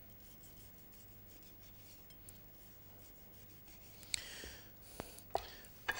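Knife slicing through seared duck breast onto a wooden chopping board: quiet at first, then a short rasping cut about four seconds in, followed by a few light knocks.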